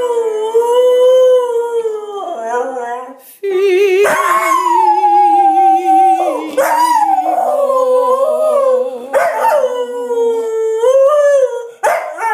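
A dog howling in a string of long, sliding notes, about six in all, each breaking off after a second or two, with a lower held note wavering in steady vibrato beneath them.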